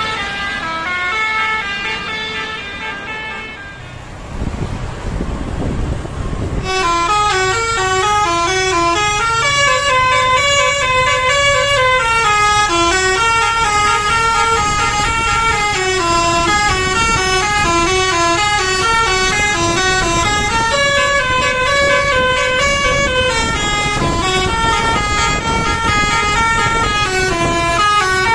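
Bus basuri telolet horn playing a melody of stepping notes, several tones sounding together. About four seconds in, a couple of seconds of engine and road noise take over, then the horn tune starts again and carries on.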